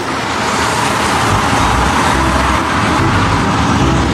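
Steady road-vehicle noise: an engine running under a dense, even rush of road sound, with a continuous low rumble.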